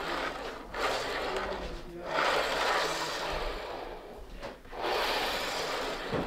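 OO gauge model coach pushed by hand back and forth along curved track on a hollow wooden baseboard, its wheels rumbling on the rails in four passes of about a second or two each. It is a running test of the coach on the curve.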